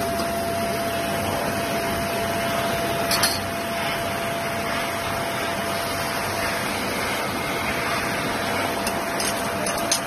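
Tunnel-type conveyor washing line for stainless-steel cookware parts running with a steady rush of noise and a faint steady hum. A few short metallic clinks come from steel workpieces being handled, about three seconds in and again near the end.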